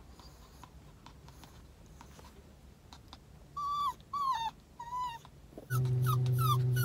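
Small dog whining anxiously: three drawn-out whimpers that drop in pitch, then quicker short whines about two a second. Near the end a loud steady low hum starts under the whining.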